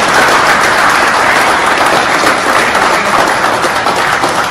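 A group of people clapping together in a loud, steady round of applause.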